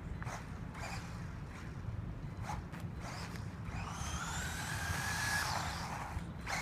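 Remote-control car's electric motor whining, rising in pitch about four seconds in and then holding steady, over a constant low rumble with a few light clicks.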